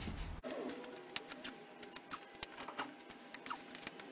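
Hand socket ratchet clicking in short, irregular strokes as the bolts of a clutch pressure plate are tightened on the engine.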